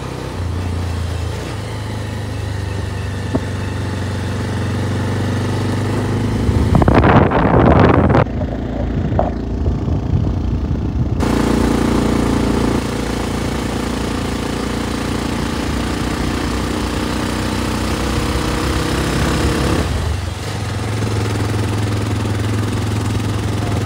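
Bajaj Pulsar 220F motorcycle's single-cylinder engine running under way on a winding hill road, its engine note shifting a few times as the ride goes on. About seven seconds in, a loud rush of wind noise hits the microphone.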